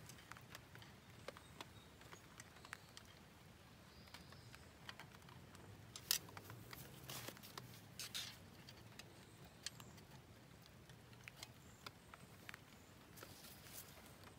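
Near silence broken by scattered faint, sharp clicks and taps of a steel tool on the tractor's front axle knuckle while a snap ring is worked onto the spindle tip. The clearest taps come about six to eight seconds in.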